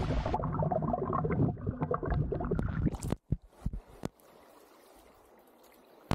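Water splashing and gurgling for about three seconds, then a few sharp knocks and near quiet.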